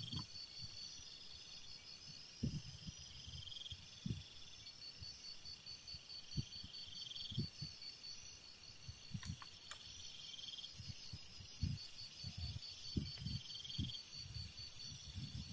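Night insects trilling steadily in high, pulsing chirrs, with a louder chirring phrase every couple of seconds. Scattered soft low thumps from handling cooking gear by the campfire.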